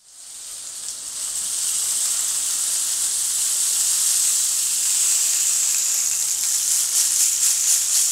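Hogweed-stalk rain stick tilted upright, its filling trickling down inside in a steady rain-like hiss that swells in over the first couple of seconds. Near the end it breaks into quick rhythmic shaking pulses.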